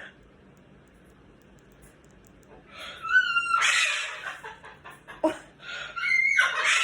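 Cockatoo screeching: loud, harsh squawks starting about three seconds in, with another near the end.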